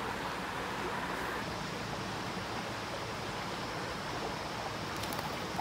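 Steady rush of flowing stream water, with a couple of faint small ticks near the end.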